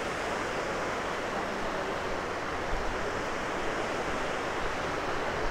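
Rushing mountain river below the trail: a steady, even rush of fast white water.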